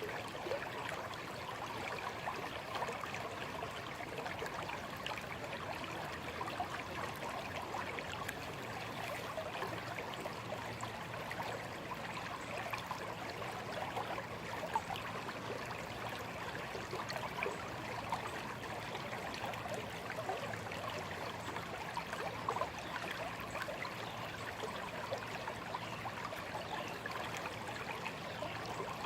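Shallow stream flowing steadily over stones, a continuous babble with many small splashes and gurgles.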